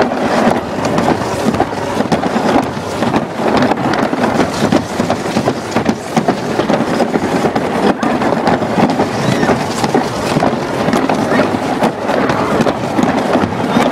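Alpine slide sled running fast down its track, with a loud, steady rattling rumble from the wheels and track.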